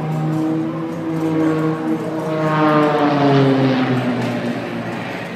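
Propeller-driven aerobatic stunt plane flying past: its engine drone swells to its loudest about three seconds in and then drops in pitch as it passes and moves away.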